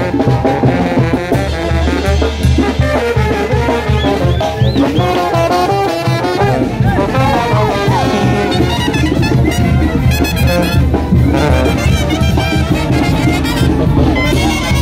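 Oaxacan village wind band of brass and clarinets playing loudly over a steady beat.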